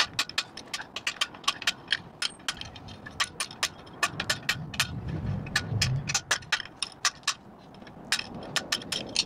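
Hand tool scraping and chipping casting flash out of an oil return hole in a cast-iron Toyota 4A-GE engine block: a quick, irregular run of sharp metallic clicks and scrapes, several a second.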